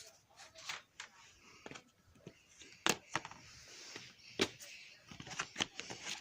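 Irregular sharp clicks and knocks: two loud ones about three and four and a half seconds in, then a quick run of them near the end.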